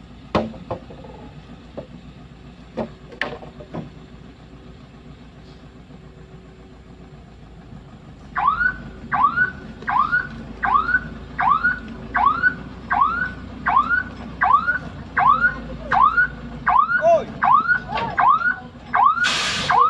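A few sharp knocks of acacia logs landing on the truck. Then, about eight seconds in, the Cửu Long dump truck's reversing alarm starts: a rising electronic whoop repeated about one and a half times a second, over the engine's low rumble. There is a short loud burst of hiss near the end.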